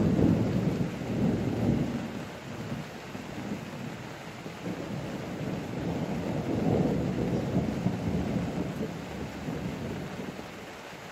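Rolling thunder over steady rain: a loud rumble at the start that dies away over the first few seconds, then a second, softer roll swelling around six to eight seconds in and fading out near the end.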